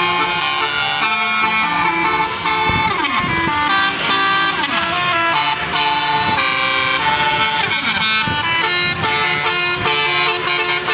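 Bus 'basuri' musical air horn playing a tune: several loud horn tones held together and stepping from note to note, with a few falling swoops in pitch.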